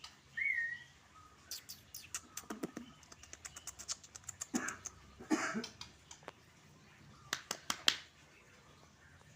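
Caged white-rumped shama: one short whistled note that rises and falls, then a long irregular run of sharp clicks and taps, some with duller thumps, as the bird calls and moves about its cage.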